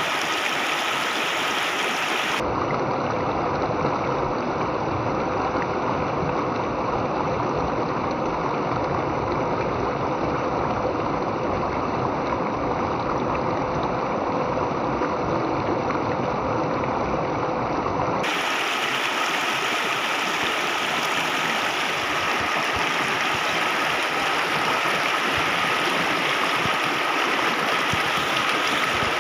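Shallow rocky stream running steadily over a small cascade of stones close by, an even splashing and gurgling of water.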